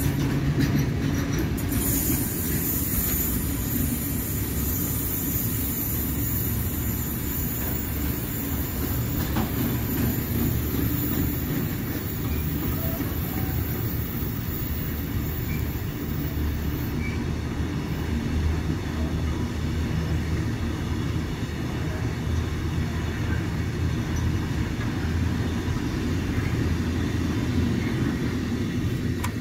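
Container freight train's wagons rolling past: a steady rumble of wheels on rail, with a high hiss over it that fades out a little past halfway.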